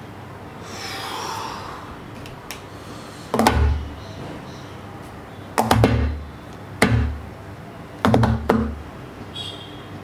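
A soft whoosh about a second in, then five heavy thuds with a deep boom: one a few seconds in, two more a second or so apart, and a quick pair near the end. A short high ring follows the last pair.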